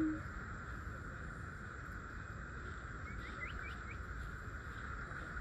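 Steady drone of forest insects, with a quick run of about four short, high rising chirps about three seconds in.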